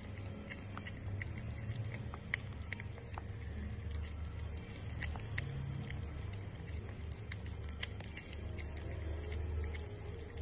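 Cat licking a lickable paste treat from a squeeze pouch: small irregular clicks of its tongue, a few each second, over a low steady rumble.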